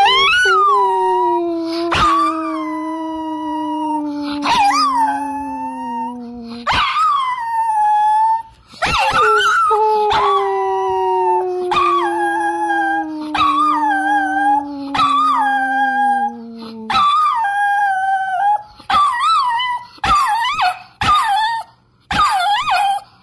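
Dog howling: long, wavering howls that bend up and down in pitch, breaking into shorter howls in the last several seconds. Under the first two howls a lower tone holds two long notes, each about seven seconds, that slowly fall in pitch.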